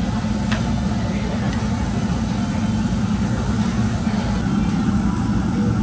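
Steady low rumble of restaurant ventilation running, with a faint click about half a second in.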